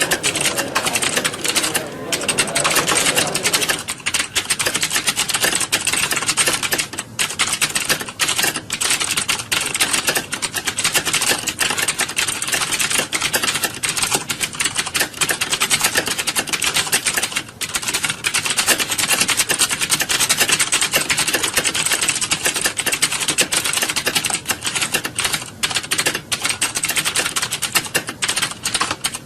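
Many computer keyboards being typed on at once, a dense, continuous clatter of keystrokes from a roomful of typists.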